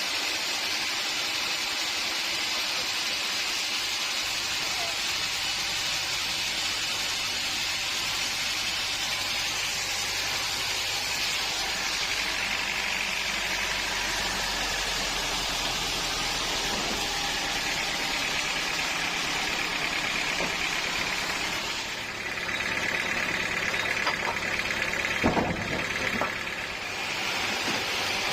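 Sawmill machinery running steadily with a continuous mechanical wash. The sound shifts about three-quarters of the way through, and a few sharp knocks follow near the end.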